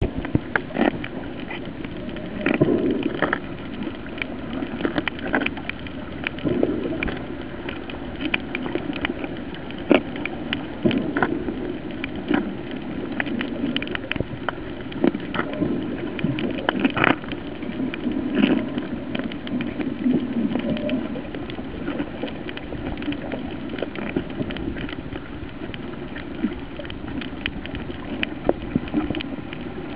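Underwater sound picked up by a waterproof compact camera: a steady muffled wash with many scattered sharp clicks and crackles, and a few low surges lasting about a second each.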